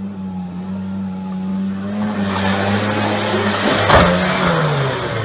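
Polaris 488 two-stroke snowmobile engine running at a steady pitch, with a rushing noise building about two seconds in. A single sharp thump comes about four seconds in, and the engine pitch then falls away.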